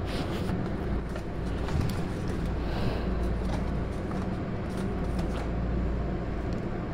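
Eggs being cracked into a plastic bowl: scattered light taps and cracks of shell, over a steady low background hum.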